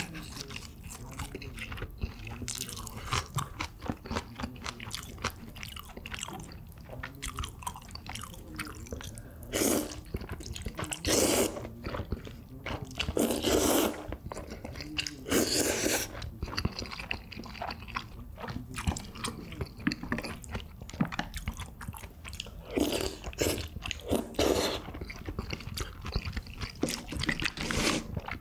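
A person chewing and biting food, with a string of small wet clicks, broken by several loud slurps of jajangmyeon black-bean noodles in the middle.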